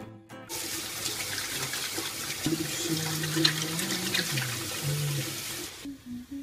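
Sesame balls deep-frying in hot oil, a steady sizzle that stops a little before the end. Over the middle of it a voice sings a few held notes.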